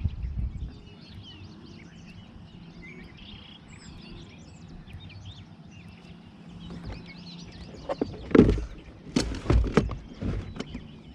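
Small birds chirping faintly in the background, with a few loud knocks or thumps about eight to ten and a half seconds in.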